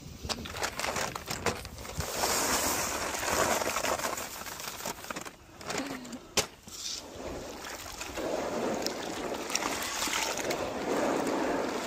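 Wet concrete mix sloshing and splashing in a plastic tub as bare hands knead it; the mix has far too much water in it. A single sharp knock about halfway through.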